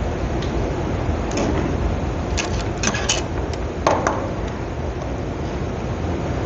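A handful of small clicks and taps from hand tools being worked at a soldering bench, the sharpest a knock with a short ring about four seconds in, over a steady low background rumble.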